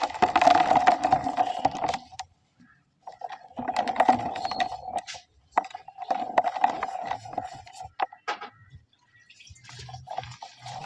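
Dry cement balls being crushed and crumbled: a gritty crackling crunch in four bouts with short pauses between.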